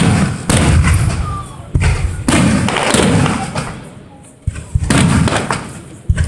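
Aerial firework shells bursting in quick succession, about half a dozen sharp bangs, each followed by a rumbling echo that fades away.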